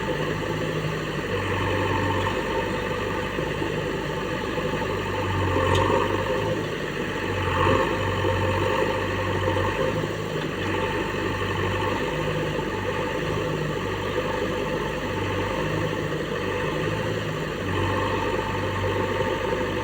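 Backhoe loader's diesel engine running steadily, swelling briefly twice about six and eight seconds in.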